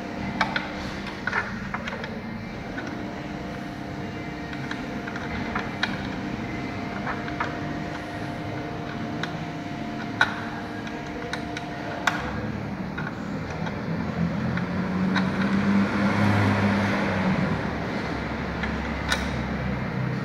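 Scattered light clicks and taps of metal parts as the sewing machine's metal rotary hook is fitted back into its bobbin race by hand. Underneath is a steady mechanical hum that swells for a few seconds in the second half.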